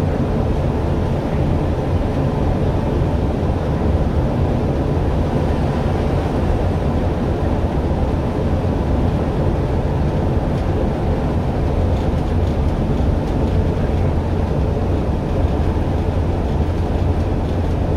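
Articulated bus running steadily along a concrete guided busway, heard from inside the cabin: a continuous low-pitched drone of engine, drivetrain and tyres on the concrete track.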